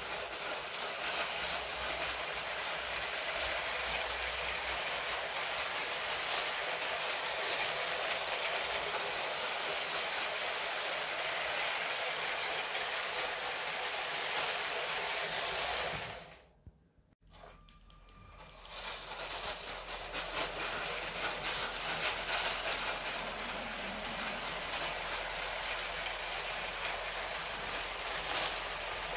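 Lego City 60197 passenger train running on plastic track: a steady rolling, rattling noise from its wheels and motor. It cuts out for a second or two a little past halfway, then returns.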